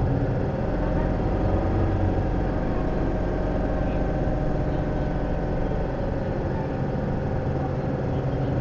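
Isuzu Erga city bus's four-cylinder turbo diesel engine idling steadily, heard from a passenger seat inside the cabin.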